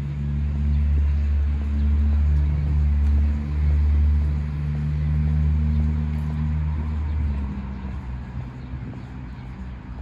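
A low, steady motor-vehicle engine rumble with a hum, loud for about seven seconds, then fading away.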